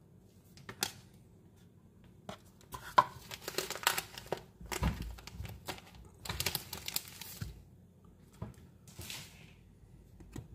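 Pokémon trading cards being handled and swapped in the hand: the cards rustle and flick against one another in irregular bursts with sharp clicks, busiest in the middle.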